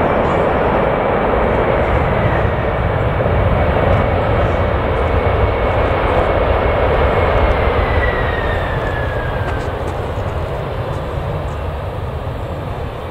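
Jet airliner's engines running at take-off thrust as it climbs past, a loud steady rush. A thin high whine slides down in pitch about eight seconds in, and the noise then begins to fade.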